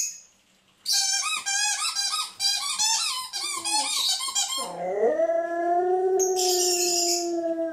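Dog vocalising while playing: a quick run of short, high squeaky whines, about four a second, then one long drawn-out howl that rises at its start and holds a steady pitch for about three seconds.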